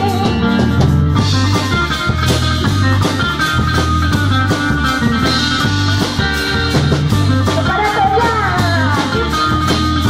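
Live kugiran band of drum kit, bass and electric guitar playing an instrumental passage over a steady beat. A woman's amplified singing comes back in about eight seconds in.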